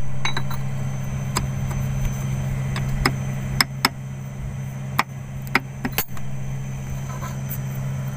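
Steady low hum of an idling engine, with about ten sharp, light metallic clicks and taps as a steel collar is handled and set down onto the shaft of a motor grader's circle rotation gear.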